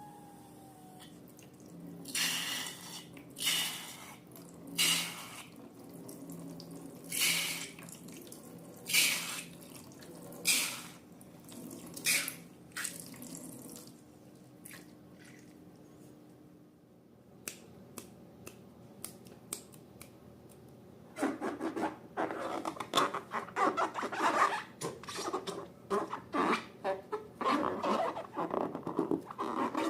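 Liquid slime ingredients poured into a bowl in a series of short splashy pours about every second and a half, followed by the sticky, rapid crackling squish of slime being stirred and mixed in the last third.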